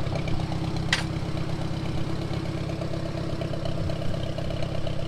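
An engine idling steadily, with one sharp click about a second in.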